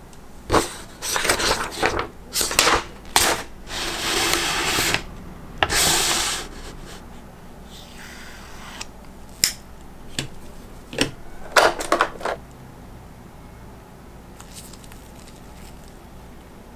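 Gloved hands handling small plastic and metal action-figure parts, a toy katana and its sheath among them. It goes as a run of sharp clicks and taps, with a few longer scraping, rustling stretches of about a second each, and it thins out after about twelve seconds.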